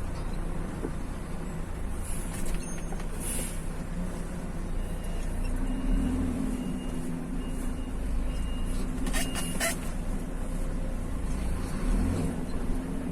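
A motor vehicle driving, heard as a steady low engine and road rumble, with a few brief clicks a little past the middle.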